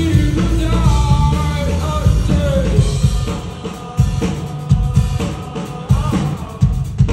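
Live rock band playing: drum kit, bass and electric guitar under a sung vocal line. From about four seconds in, the drums break into sharp separate hits.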